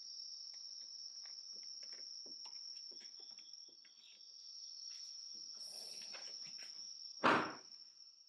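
Crickets chirping in a steady high-pitched drone, with light taps and clicks of hands pressing a plastic protector strip onto a van's rear bumper. One loud thump comes about seven seconds in.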